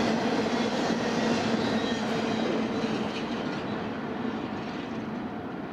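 Intermodal freight train cars loaded with containers and truck trailers rolling past: the steady rumble and rattle of their wheels on the rails, fading from about halfway through as the end of the train moves away.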